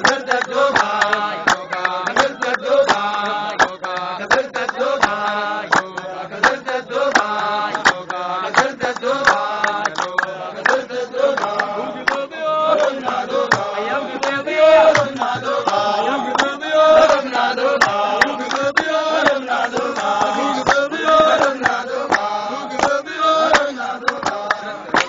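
A group of men singing a chant-like folk song together, with sharp hand-claps keeping a steady beat.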